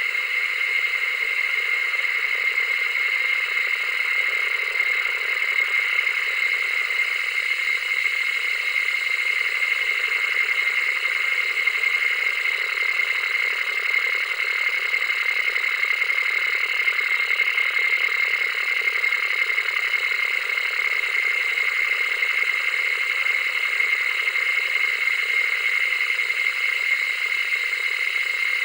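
Old analog television static: a steady hiss and crackle that does not change over the whole stretch.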